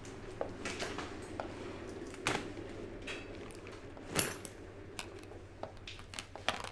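Scattered light knocks and clinks of plates and tableware being set out on a dining table, with a door-like knock among them; the sharpest knocks come about two and four seconds in.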